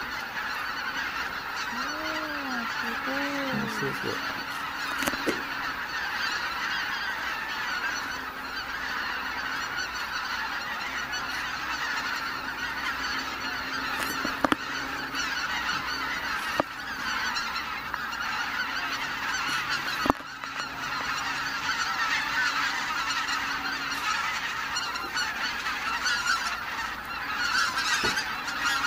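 A large flock of greater white-fronted geese calling all at once, a dense, unbroken chorus of honking as the birds lift off the lake and fly overhead. A few sharp knocks cut in partway through.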